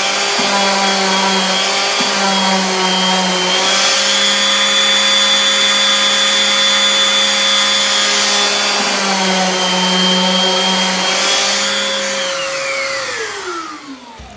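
Electric sander running steadily, sanding hardened Bondo filler flush with the wood veneer. Near the end it is switched off and winds down with a falling whine.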